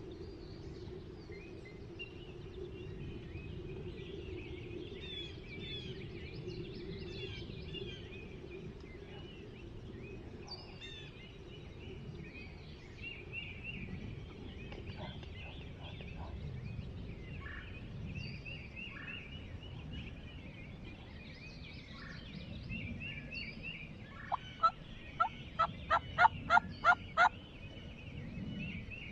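A turkey calling a series of about nine loud yelps, evenly spaced over about three seconds near the end, with small songbirds chirping in the background throughout.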